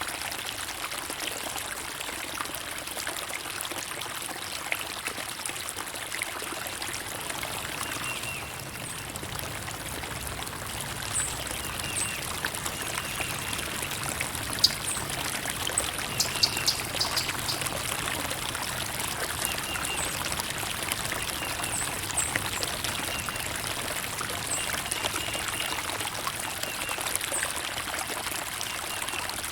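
Water of a small stream trickling and running steadily. Short high bird chirps come in from about a third of the way through, with a few sharp ticks, the loudest sounds, around the middle.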